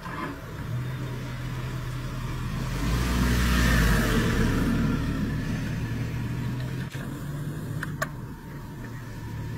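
A steady low motor hum, with a louder rumble swelling about three to four seconds in and a short click near the end.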